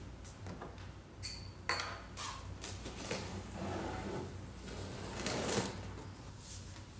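Scattered clicks and knocks of objects being handled, with a short high tone about a second in and a louder rustling swell about five seconds in.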